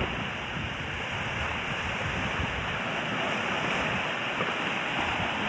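Small waves washing on a sandy beach, heard as a steady rush, with wind buffeting the microphone.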